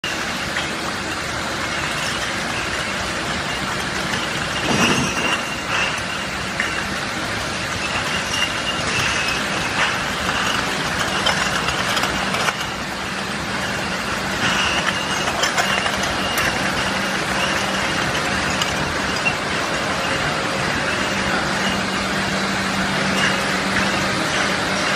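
Glass bottle washing machine running steadily: an even mechanical noise with a low hum, an on-and-off high tone, and occasional knocks.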